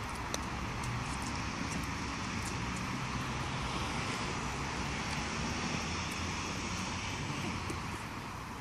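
Steady outdoor background noise, a low rumble with an even hiss, dotted with faint light ticks.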